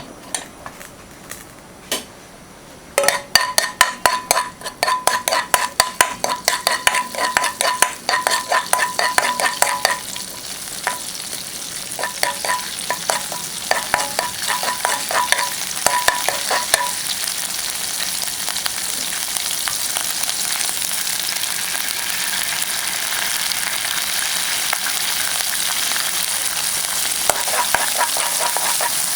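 Vegetables stir-frying in a hot pan: from about three seconds in, a metal utensil strikes and scrapes the pan rapidly with a ringing clang. The strikes thin out after the middle, and the sizzling grows steadier and louder, with tapping coming back near the end.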